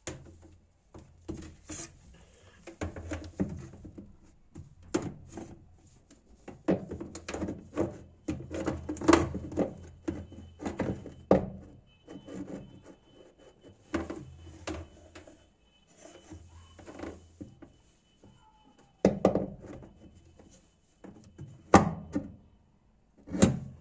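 Plastic pulsator of a top-loading washing machine being fitted back onto its shaft in the tub: irregular knocks, thunks and clatter of plastic on plastic and metal, with the loudest knocks in the middle and near the end.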